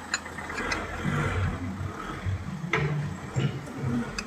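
Renault Trafic 2.5 dCi diesel engine running on its replacement crankshaft pulley, with a few sharp clicks over it.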